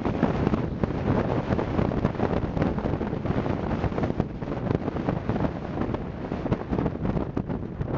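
Wind buffeting the microphone over the steady noise of a car driving slowly up a road.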